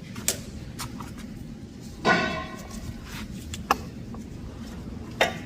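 Scattered sharp clicks and taps of hand work on a BMW rear brake pad wear sensor and its plastic clips, with a brief high squeal about two seconds in.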